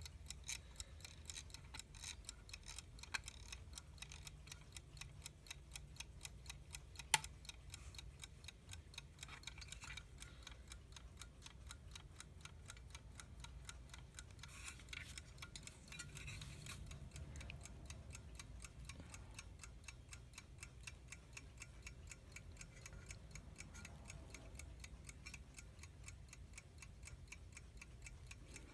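US Time Waterbury alarm clock movement ticking steadily and rapidly, faint and even. A single louder click sounds about seven seconds in.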